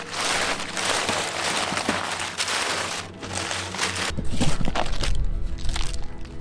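Crumpled packing paper rustling and crinkling as it is pulled out of a cardboard box, then cardboard being handled with a low rumble from about four seconds in.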